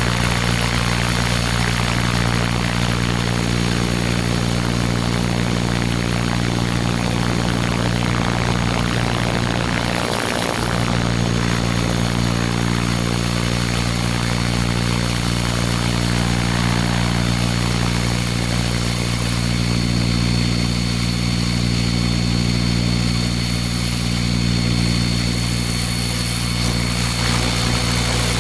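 Radio-controlled Airwolf scale model helicopter's motor and rotor running steadily, heard from a camera mounted on its fuselage, with rushing air over the microphone. The low drone briefly breaks about ten seconds in, and the rushing air eases off in the second half as the model comes down to the grass, still running.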